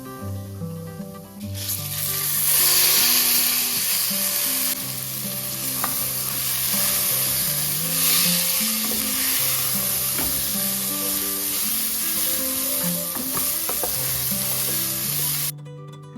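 Food sizzling loudly in hot oil in a pan, starting suddenly about a second and a half in, with a few short spatula clicks as it is stirred; the sizzle cuts off abruptly near the end. Acoustic guitar music plays underneath.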